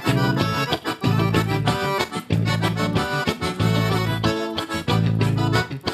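Instrumental break of a gaúcho folk song, an accordion leading the band in rhythmic chords.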